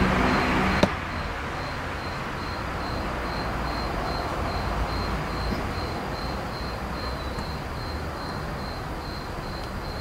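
Outdoor night ambience: a steady low rumble with a faint, high chirp repeating about three times a second, like a cricket. About a second in, a louder hum-laden noise cuts off abruptly with a click.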